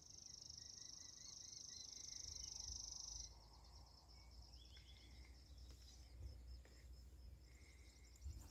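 Faint outdoor quiet with a high, steady insect trill that cuts off about three seconds in, and a few faint bird chirps.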